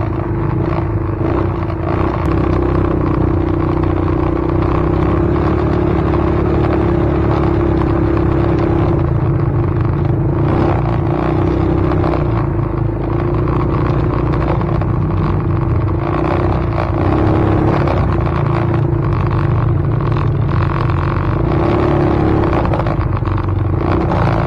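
A steady vehicle rumble with a constant low drone running unbroken.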